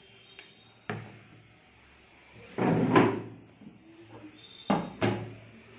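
Metal pot lids and steel bowls clanking against each other and the table as they are handled: a sharp clank about a second in, a longer, louder clatter near three seconds, and two quick clanks near the end.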